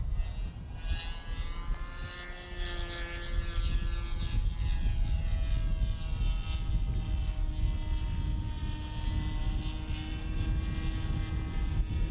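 Experimental VTOL tailsitter RC model airplane flying overhead, its motor and propeller giving a steady buzzing tone. The pitch drifts slowly down and then rises again near the end as the throttle and distance change.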